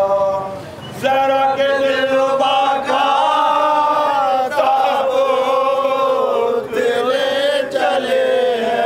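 Male voices chanting a marsiya, a Shia elegy for the martyrs of Karbala, in long held, wavering melodic lines; the voices break off briefly about half a second in and then resume.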